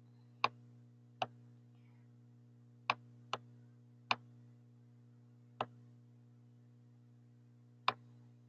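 Computer mouse clicking: seven short, sharp clicks at uneven intervals, over a faint steady hum.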